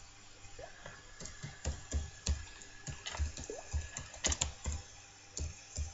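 Typing on a computer keyboard: irregular key clicks, several a second, with short pauses between bursts.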